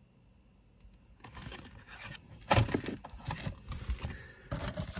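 Costume jewelry being rummaged by hand in a wooden box: metal brooches and necklaces scraping, rustling and clinking against each other, with a louder clatter about two and a half seconds in and again near the end.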